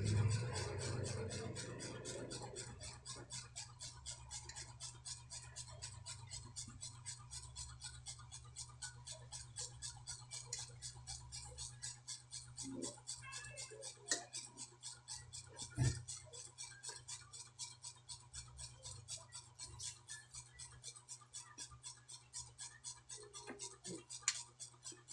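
Steady, rapid, even ticking over a constant low hum, with a few louder sharp clicks, about fourteen and sixteen seconds in and again near the end.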